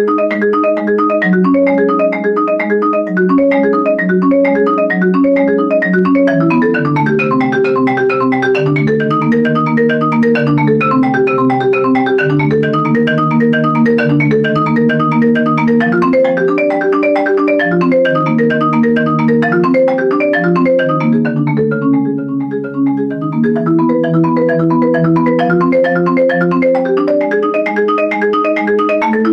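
Concert marimba played with four yarn mallets: a steady flowing stream of struck notes in the low and middle register, thinning briefly about two-thirds of the way through before the pattern picks up again.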